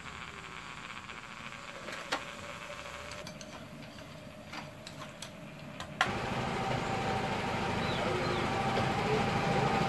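Scattered light clicks and knocks over a quiet background, then a sudden jump about six seconds in to a louder, steady engine-like running sound with a low rumble and a held tone.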